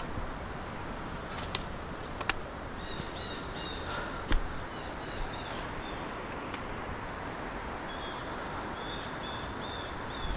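Steady rush of flowing river water, with a small bird giving series of short, quick chirps twice and a few sharp clicks in the first half.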